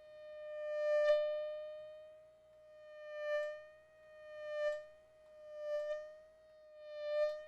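Synthesized mosquito whine made in Logic Pro X: a steady buzzing tone with many overtones that swells louder and fades away about five times, with a slight wobble in pitch, as if the insect flies close to the ear and off again.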